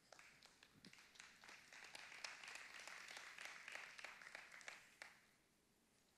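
Faint applause from a congregation, a patter of many claps that builds about a second in and dies away after about five seconds.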